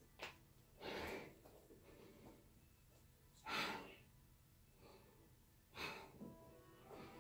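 A person breathing audibly and deeply through a yoga pose: a few long breaths, each about half a second, a couple of seconds apart, with faint soft background music underneath.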